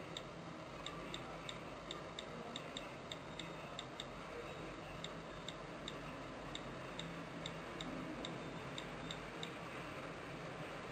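Faint iPhone on-screen keyboard clicks as an Apple ID and password are typed in: a run of sharp high ticks, two or three a second, unevenly spaced, with short pauses, over a faint steady hiss.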